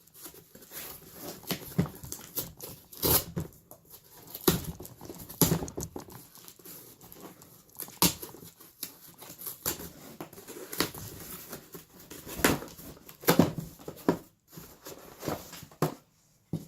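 Cardboard mailer box being torn and pried open, its tight cardboard tabs pulled apart, with irregular tearing, scraping and crinkling of the packaging.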